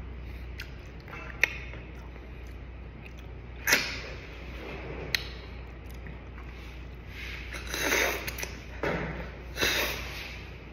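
A person sucking the meat out of snail shells cooked in coconut milk: a few sharp clicks in the first half, then two longer slurps in the second half.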